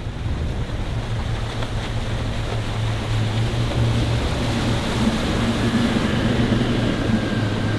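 Twin outboard motors of a work boat running at speed: a steady low engine drone under the rush of water and wind. It grows a little louder about three seconds in.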